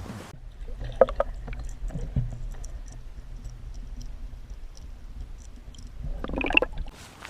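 Water sloshing and knocks around a kayak as a hooked brook trout is brought in, over a steady low rumble. There are sharp knocks about one and two seconds in, and a louder splashy burst near the end.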